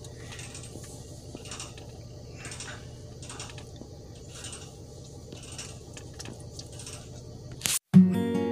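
Steady low engine idle heard from inside a car, with a faint hiss returning about once a second. Near the end it cuts off and acoustic guitar music starts.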